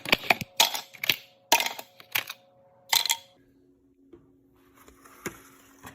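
Ice cubes clinking and rattling as they are dropped one after another into a container: a quick run of sharp clinks, then quieter, with a single click near the end.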